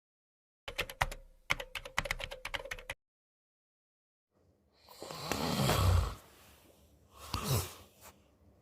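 A quick run of sharp clicks, like typing on a keyboard, for about two seconds. After a short silence comes a man snoring: one long snore that swells over about a second and a half, then a shorter snort with a falling pitch near the end.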